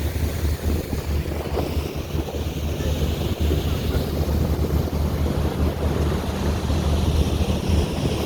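Wind buffeting the microphone on a moving tour boat, over the steady drone of its engine and water rushing past the hull.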